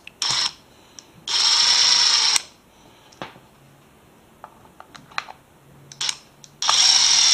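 Small electric screwdriver whirring in short runs as it backs screws out of a plastic battery case. There are two main runs of about a second each, each after a brief blip, with small clicks of screws and handling between.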